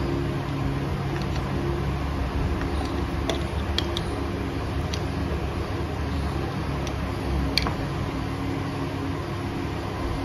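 A handful of light metallic clicks and clinks from a spanner and small parts as a motorcycle's oil filter cover is worked loose and removed, over a steady mechanical hum.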